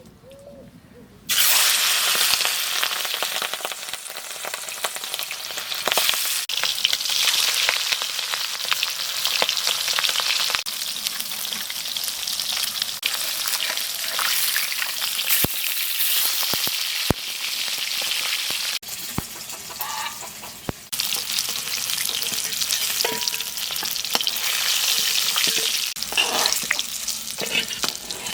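Food sizzling as it fries in hot oil in a pan, stirred now and then. The sizzle starts abruptly about a second in and breaks off and resumes several times.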